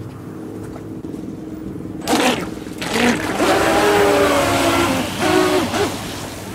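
Radio-controlled racing boat's motor throttled up suddenly about two seconds in, with a whine that rises and falls over a rush of water spray as the boat runs, easing off near the end.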